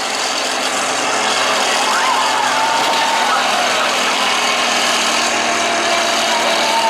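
Combine harvester engines running steadily in a demolition derby arena, a dense continuous engine noise with a held hum underneath.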